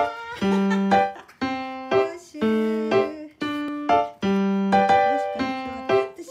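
Background music: a melody of separate, evenly spaced notes, about two a second.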